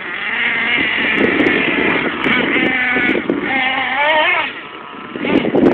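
A small off-road buggy's engine revving high, its pitch wavering up and down. About four seconds in the pitch drops, and the sound eases briefly before picking up again near the end.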